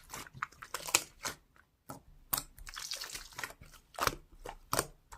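Slime being worked by hand, giving off irregular crackling clicks and pops.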